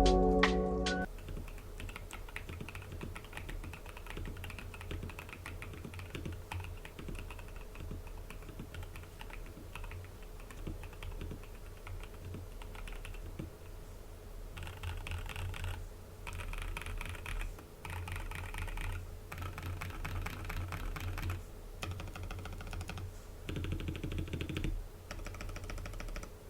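Typing on an Epomaker EK68 mechanical keyboard fitted with Akko V3 Lavender Purple Pro linear switches and stock keycaps: steady key clacking, turning into faster bursts with short pauses between them in the second half.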